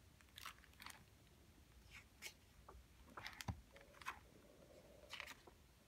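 Faint handling of a hardcover picture book: soft paper rustles and light taps as the cover is opened and pages are turned, with a soft thump about three and a half seconds in.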